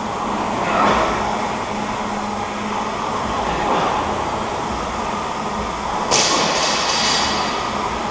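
Several air-resistance rowing machines in use at once, their flywheel fans whirring in a steady rushing noise that swells with the strokes. A short, sharp noise cuts through about six seconds in.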